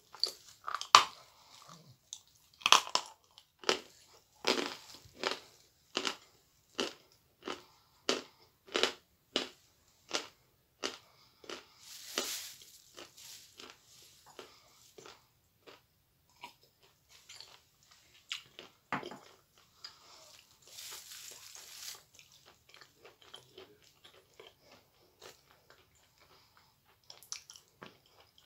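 Close-up biting and chewing of a dry, crumbly chunk of edible clay, with crisp crunches about once a second for the first ten seconds, then fainter, sparser crunching. Two soft hissing stretches come in the middle.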